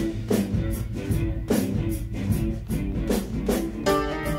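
Playback of an in-progress band mix: a drum kit keeping a steady beat under piano chords that carry a chorus effect.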